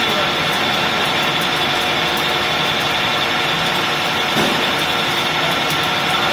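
16K25B screw-cutting lathe running: a steady machine noise carrying several constant high-pitched tones.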